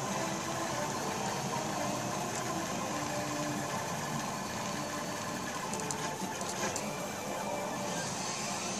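Prusa Mendel i2 3D printer printing: its stepper motors whine in short tones that keep changing pitch as the print head darts back and forth over the parts.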